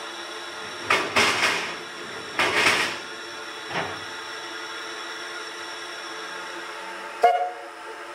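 Narrow-gauge steam locomotive standing with a steady hiss and hum, broken by two loud bursts of escaping steam about one and two and a half seconds in and a smaller puff near four seconds. A sharp knock sounds near the end.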